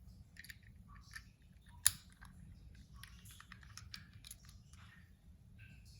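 Scattered light clicks and taps of a small die-cast toy car being handled, with one sharp click about two seconds in.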